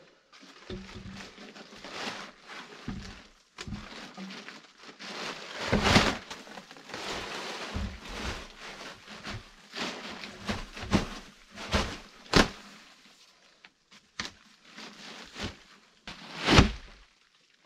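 Plastic tarp rustling and crinkling as it is handled at the foot of a log wall, with scraping, scuffing and short knocks. The loudest knocks come about six seconds in, about twelve seconds in and near the end.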